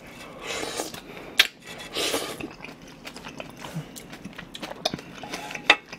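Close-up chewing of a mouthful of kimchi fried rice, wet mouth sounds, with a few sharp clicks, the loudest near the start and near the end.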